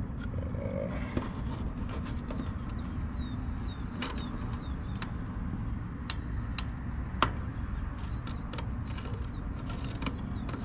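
A bird chirping a quick, repeated series of short high notes over a low steady rumble, with a few sharp clicks, the loudest about seven seconds in.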